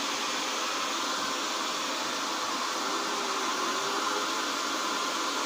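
Small hand-held hair dryer running steadily, blowing on a wet dog's fur.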